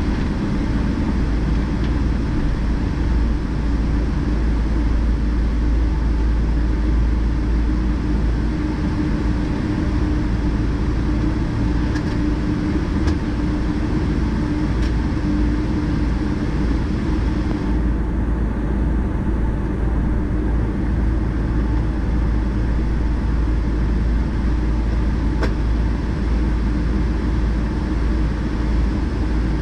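Steady cabin noise of a Boeing 777-200ER taxiing, heard from inside the cabin: a low rumble from the Rolls-Royce Trent 892 engines at idle and the rolling aircraft, with a few faint clicks.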